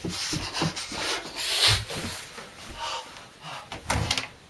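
Close, irregular rubbing and rustling against a handheld camera's microphone, with soft footstep thumps and a few sharper scrapes, loudest about a second and a half in and again near the end.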